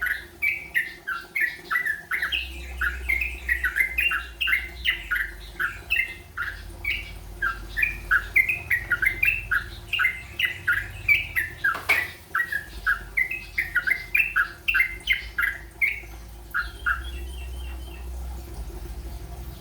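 Yellow-vented bulbul (trucukan) singing a fast, unbroken run of short falling chattering notes, several a second, which stops about three seconds before the end. A sharp click sounds once, partway through.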